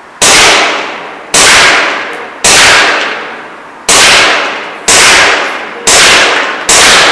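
ASG CZ P-09 gas blowback airsoft pistol firing seven shots, about one a second at an uneven pace, each sharp report with the slide cycling and a long echo trailing off.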